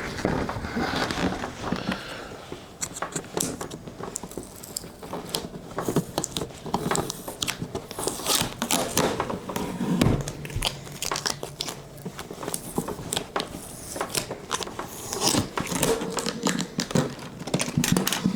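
Crinkling and crackling of plastic packaging being handled, with irregular small clicks and knocks.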